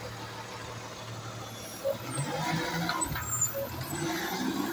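Garbage truck engine running steadily, then a sudden knock about two seconds in, after which the engine note rises and shifts. A short hiss follows about three seconds in.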